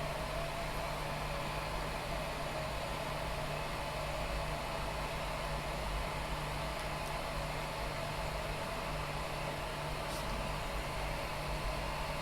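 Steady hum of a small cooling fan with a faint constant tone, and a light tick about ten seconds in.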